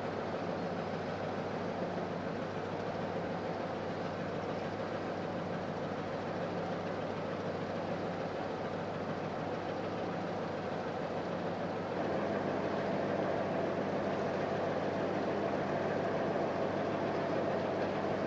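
ST44 (Soviet M62) diesel locomotive's two-stroke V12 engine running steadily with a low hum. About twelve seconds in it steps up in level and takes on a higher tone.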